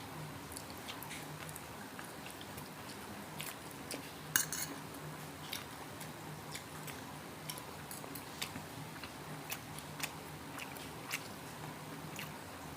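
Chewing and biting crispy pork belly, with scattered clicks of cutlery and dishes; the loudest clatter comes about four seconds in.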